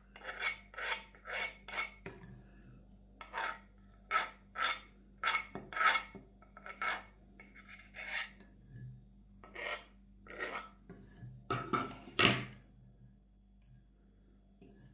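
Florist's knife scraping finely minced garlic off a cutting board into milk: short, rasping scrapes about two to three a second, then a few spaced strokes, the loudest about twelve seconds in.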